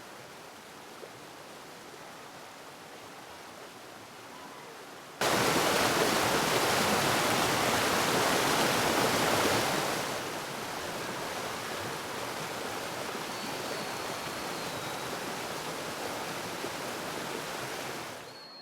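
Waterfall, a steady rush of falling water. It is softer at first, turns suddenly much louder about five seconds in, and eases back somewhat about halfway through.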